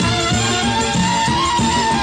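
Instrumental break in a Persian folk-style song: a held melody note that rises briefly and settles back, over a steady bass and rhythm pattern.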